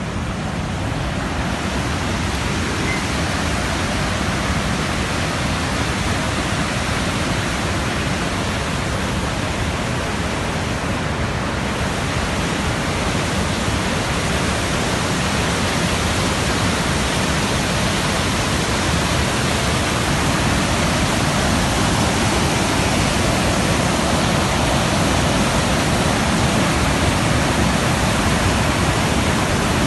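Fast-flowing water rushing steadily, a dense even noise with no breaks.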